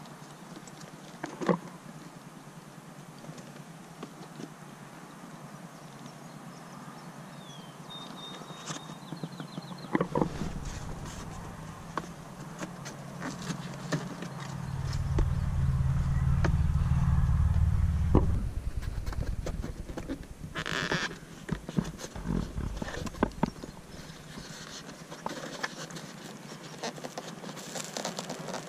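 Plastic pillar trim in a car's cabin being pried and pulled loose by hand, with scattered clicks and snaps of trim clips releasing and one longer rasping snap about two-thirds of the way through. A loud low rumble swells up in the middle for several seconds and then stops.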